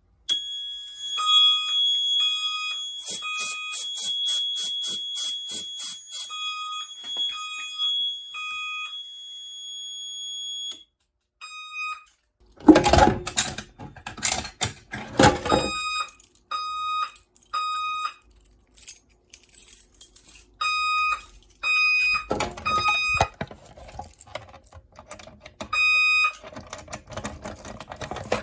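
Fire alarm notification appliances sounding during a walk test: a horn gives repeated short, evenly pitched beeps. A steady high-pitched tone runs alongside the beeps and stops about eleven seconds in. A louder, noisy stretch comes a little past the middle.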